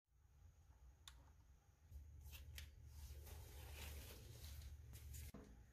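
Faint handling sounds: a few light clicks and the soft rustle of a vinyl record sleeve sliding out of a shelf of records, over a low hum.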